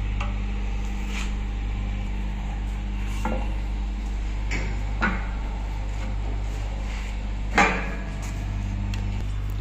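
Several short knocks and clinks as the surgical light's metal pipes and fittings are handled and fitted together, the loudest about three quarters of the way through, over a steady low hum.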